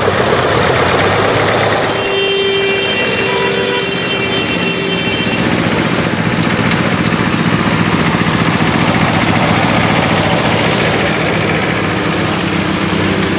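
Farm tractors' diesel engines running as they drive past one after another. A vehicle horn sounds steadily for about three seconds, starting about two seconds in.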